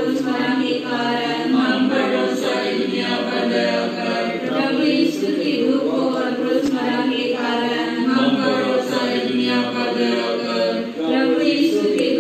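A congregation singing a devotional hymn together, voices only, at a steady flowing pace.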